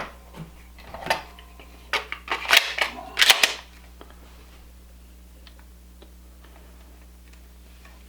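Empty polymer pistol magazines and a Glock pistol being handled on a bench: a series of sharp plastic-and-metal clicks and clacks over the first three and a half seconds. After that, only a faint steady electrical hum.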